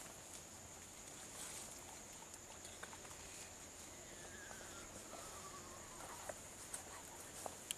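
Faint outdoor ambience: a steady high-pitched insect drone, with scattered small clicks and rustles and a faint falling whistle about four seconds in.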